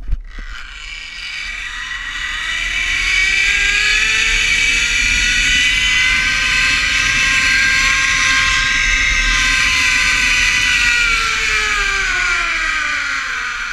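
Zipline trolley pulleys running along the steel cable: a whine that rises in pitch as the rider picks up speed, holds, then falls as the trolley slows near the end. Wind rushes over the microphone throughout.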